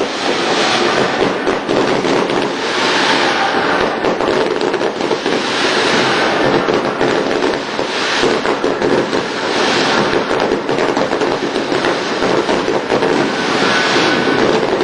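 Fireworks crackling in a dense, unbroken stream of small pops, swelling louder now and again.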